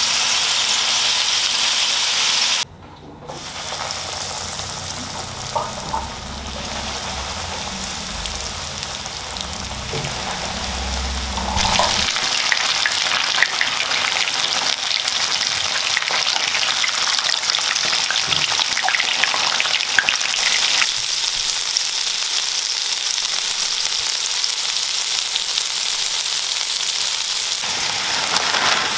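Food frying in hot oil: a mutton burger patty sizzling in a flat frying pan, then cheese corn dogs deep-frying in a wok of bubbling oil, with light clicks of metal tongs turning them. Water boiling near the end. The sound changes abruptly several times between takes.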